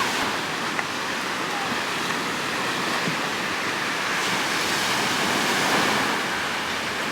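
Sea waves washing onto a beach in a steady rush, with wind buffeting the microphone.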